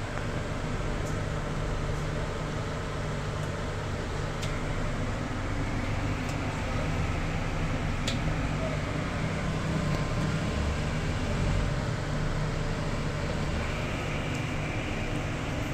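Steady low mechanical hum, with a few faint, sharp clinks of dishes.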